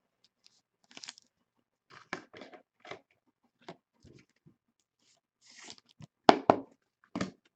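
Trading cards being handled and sleeved: scattered short rustles, scrapes and clicks, the loudest a few sharp clicks about six seconds in.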